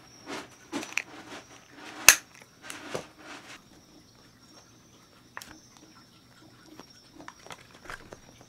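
A plastic baby pacifier being handled and mouthed by cats: soft clicks and rustles with one sharp click about two seconds in, then only a few faint ticks.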